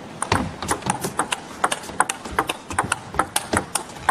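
Table tennis rally: the plastic ball clicking sharply off the rubber bats and bouncing on the table, several quick hits a second in an uneven back-and-forth rhythm.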